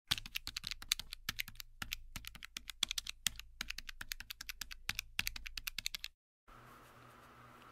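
Rapid fingertip taps on a smartphone touchscreen, entering a long sum into a calculator app: quick sharp clicks several times a second that stop abruptly about six seconds in, leaving a faint steady room hum.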